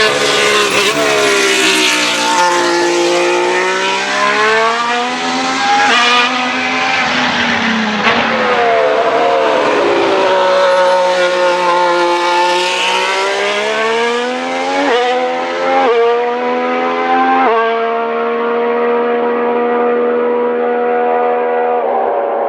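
The 1.6-litre V6 turbo-hybrid Red Bull Ford power unit of the 2026 Racing Bulls VCARB03 Formula 1 car running on track. The engine note falls and rises twice as the car slows and accelerates, then steps through a few quick gear changes about two-thirds of the way in and holds a steady pitch near the end.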